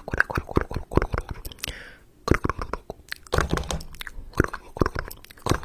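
Dense, rapid crunching clicks, with a brief pause about two seconds in.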